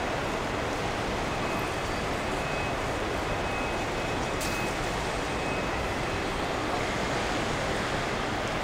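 Steady, even rushing background noise of a large airport terminal hall, with a faint thin high tone from about one to five seconds in and a brief click near the middle.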